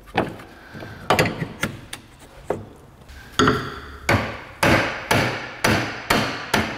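Hammer blows on metal at the lower mount of a rear strut, driving the strut's lower mounting bolt through the knuckle and bushing. The blows come irregularly at first, then settle into about two a second, each with a short metallic ring.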